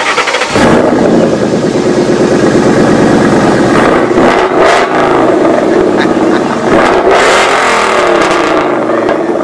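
A car engine running loudly and revving, its pitch rising and falling.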